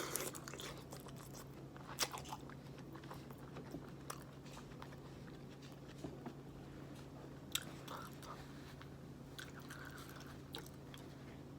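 Close-miked chewing and wet mouth sounds of a person eating a seafood boil in sauce, with scattered sharp clicks and smacks. A faint steady low hum runs underneath.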